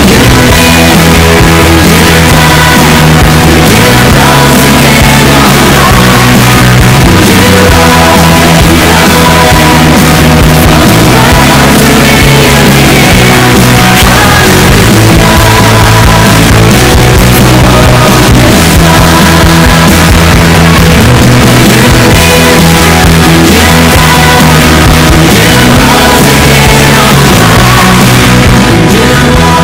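Loud background music: a rock-style band track that runs without a break.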